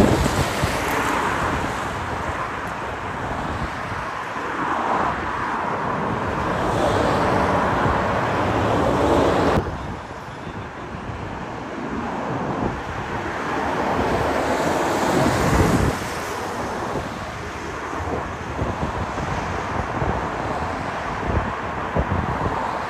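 Road traffic passing on a busy multi-lane road: tyre and engine noise swelling and fading as vehicles go by, with wind buffeting the microphone. The sound drops suddenly about nine and a half seconds in.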